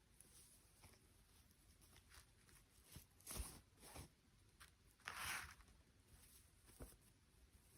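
Faint handling noises: a few short rustles and light clicks, the longest rustle about five seconds in.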